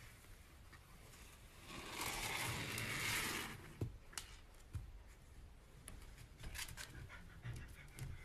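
A puppy moving against a wooden floor and cabinet: a scraping rustle for about a second and a half, then a few light taps and clicks.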